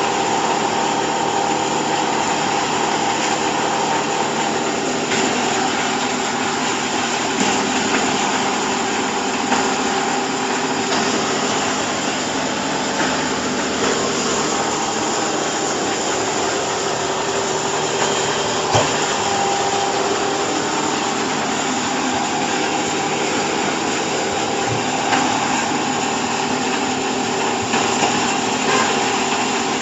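Corn silage baling machine running steadily, a continuous motor hum with a few faint knocks along the way.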